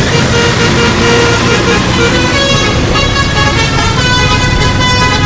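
A bus's musical horn sounding a tune of short notes that step up and down in pitch, over the steady low running of the bus engine.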